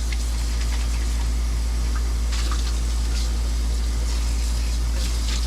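Steady low hum with an even hiss of an RV air conditioner running, with a few faint clicks.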